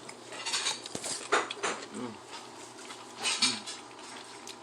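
Someone eating crab and lobster: a string of short, sharp smacking and cracking clicks. Two short low hums come about two seconds in and again near the end.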